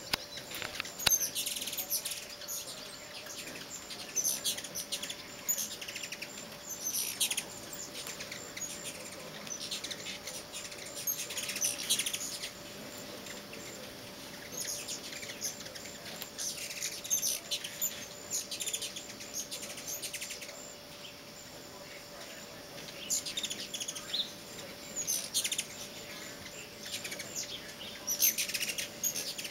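Ruby-throated hummingbirds chattering and chipping in quick, high-pitched bursts as they chase one another around nectar feeders. There is a brief lull about two-thirds of the way through.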